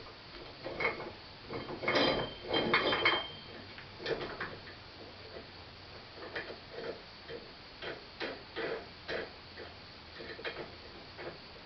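Cast iron corn mill parts clinking and knocking as they are handled and fitted together, in irregular light clicks. About two seconds in comes a louder clatter of several clanks with a brief metallic ring.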